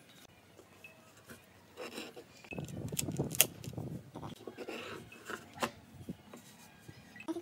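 A wooden clock face handled on a workbench: about two seconds of wood rubbing and scraping on the bench with sharp clicks, starting a couple of seconds in, then a few light knocks as it is set back down.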